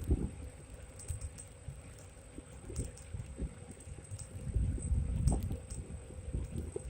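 Wind buffeting the microphone in irregular low gusts, over the wet hiss and patter of an electric scooter's tyres on a wet road, with scattered small ticks.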